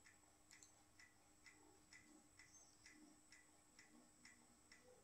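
Near silence with a ticking clock: faint, evenly spaced ticks, about two a second.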